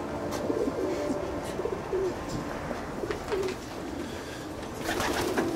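Racing pigeons cooing in their loft, several short low coos one after another, with a brief rustling burst of noise near the end.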